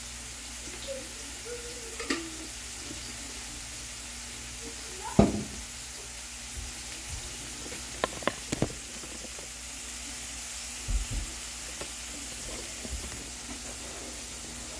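Food and chopped onion sizzling in oil in a frying pan, a steady hiss. A sharp knock about five seconds in is the loudest sound, with a few quick clicks around eight seconds and soft thumps near eleven.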